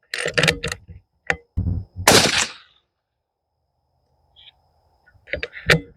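A single suppressed rifle shot about two seconds in, from a Marlin X7VH bolt-action .223 fitted with a Dead Air Sandman S suppressor, the report fading out within about half a second. A few short clicks and knocks come before it in the first second.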